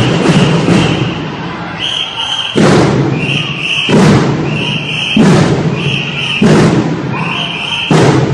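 Drum and lyre corps drumline ending a dense passage, then striking five slow, heavy unison hits about a second and a quarter apart.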